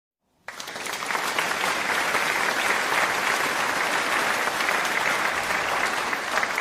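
Applause from a crowd: dense clapping that starts about half a second in and holds steady.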